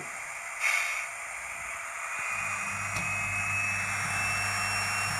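Hornby TTS Valenta sound decoder playing a Paxman Valenta diesel engine sound through the model's small speaker: a steady hiss with a brief burst near the start, then about two seconds in a low engine note comes in with a thin turbo whine slowly rising in pitch as the engine sound runs up.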